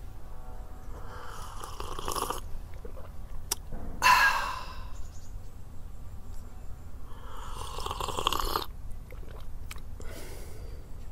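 Exaggerated slurps of hot coffee from a mug, two long ones about a second and seven seconds in, with a louder, shorter sound about four seconds in and a smaller slurp near the end.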